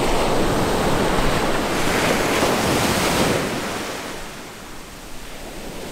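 Ocean surf breaking and washing up the beach, with wind rumbling on the microphone. The wash swells for the first three seconds or so, then dies down.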